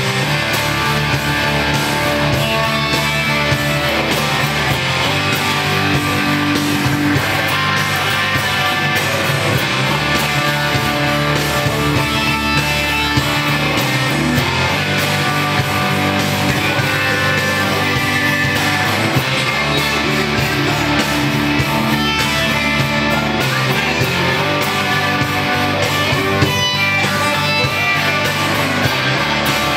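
Rock music: a Stratocaster-style electric guitar playing riffs and lead lines over a steady low bass line, loud and continuous.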